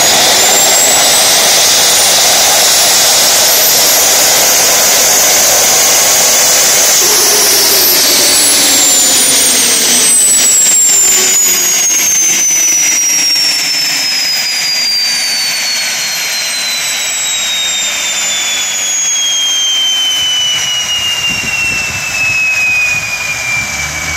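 Tiernay gas turbine running with a high whine and a rushing jet noise. The whine climbs in pitch for about the first seven seconds, then the turbine winds down, its whine falling steadily and the rush fading for the rest of the time.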